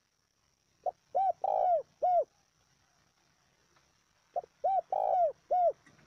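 Spotted dove cooing: two four-note phrases about three and a half seconds apart, each a short note and a coo, then a longer rough coo and a final coo.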